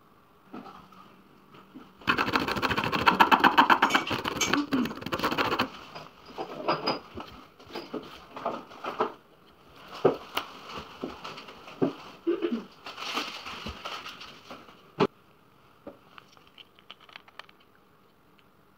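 Close handling noises: starting about two seconds in, a few seconds of rapid, dense rasping clicks, then scattered clicks and taps with one sharp click about fifteen seconds in.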